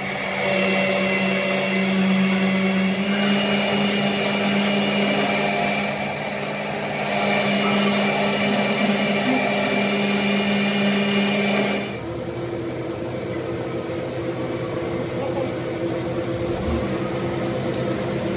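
A workshop machine's electric motor running steadily with a held whine, then about twelve seconds in dropping to a quieter steady hum.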